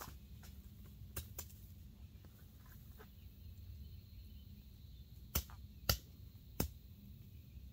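Three sharp chops of a machete striking brush near the ground, a little over half a second apart, after a couple of fainter ticks, over a low steady background rumble.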